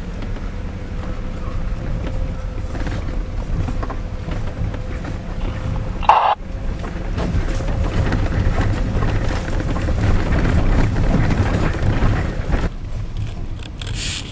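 Pickup truck cab while driving a dirt road: a steady low engine and road rumble, broken about six seconds in by one short, loud sound.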